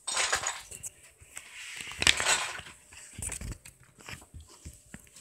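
Paper rustling and handling noise as a picture book's pages are turned, in short bursts with the loudest about two seconds in. A dull low bump follows about three seconds in.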